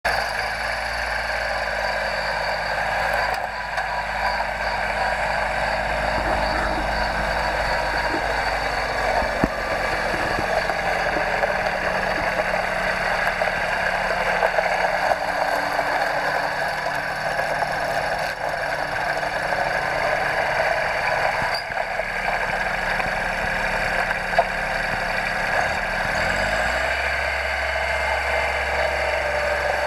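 Honda TX130 mini tractor's diesel engine running steadily as the tractor drives around, with a rising pitch about 26 seconds in as the engine speeds up.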